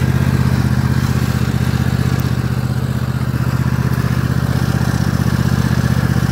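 Toro zero-turn riding mower's engine running steadily as the mower is driven slowly across the grass: a low, even engine note with a fast firing pulse.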